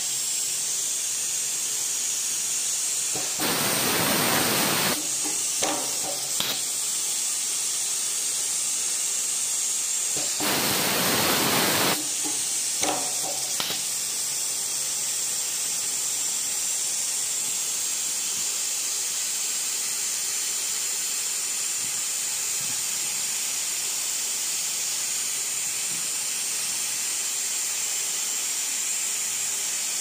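WL-TG210 heat-shrink tubing insertion and shrinking machine running with a steady high hiss, broken twice by a loud rush of air lasting about a second and a half, each followed by a few light clicks.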